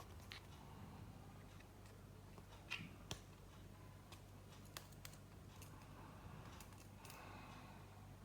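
Near silence: room tone with a faint low hum and a few faint, scattered clicks of small objects being handled.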